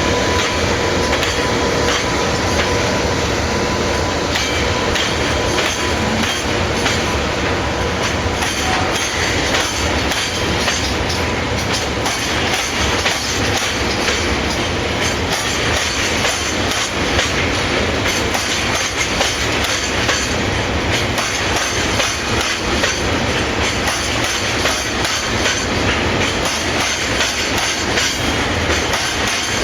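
Freight train passing close by: a long run of wagons rolling steadily with a continuous rumble and clatter of wheels over the rails, and a thin squeal of wheels in the first few seconds.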